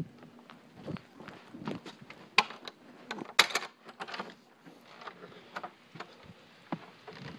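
Irregular knocks and clicks of footsteps and a handheld phone being moved about, with a couple of sharper clicks near the middle.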